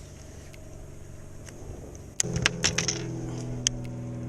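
A boat motor switches on about two seconds in and then runs with a steady low hum, with a few sharp clicks as it starts.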